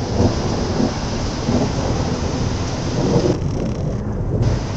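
Thunder rumbling low and continuously, with steady rain falling.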